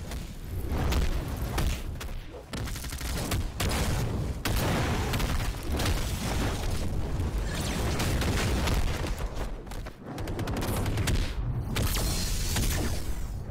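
Animated fight sound effects: a dense, loud run of booms, blasts and impacts. There is a brief drop about ten seconds in before the blasts resume.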